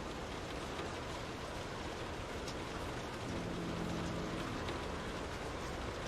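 Steady rain on a window pane, an even patter with scattered drop ticks. About halfway through, a low hum with several overtones comes in for roughly two seconds and then fades.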